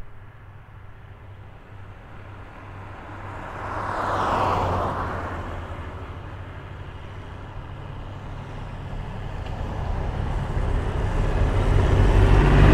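Road vehicles passing on a highway, each one a swell of tyre and engine noise. One passes about four seconds in, and a louder one builds up near the end, over a low steady hum.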